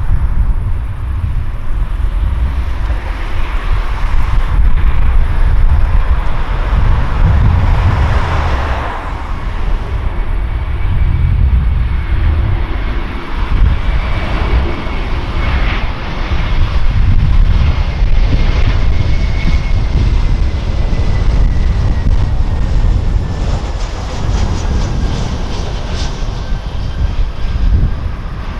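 Airbus A321 jet engines as the airliner comes in to land and passes, a steady jet roar over a deep rumble, with a thin engine whine that slowly falls in pitch.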